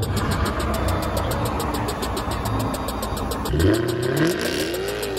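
Jaguar F-Type sports car engine, first a steady engine-and-road rumble, then revving hard twice in the second half, its pitch rising steeply each time.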